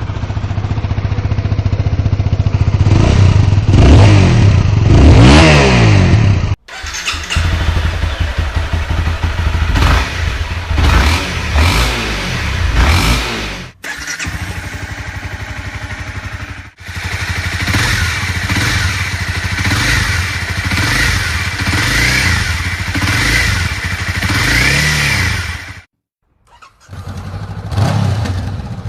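Honda CBR sportbike engines revving through stock exhausts, one bike after another, in five clips that cut abruptly into each other. In the first, the revs climb and fall several times.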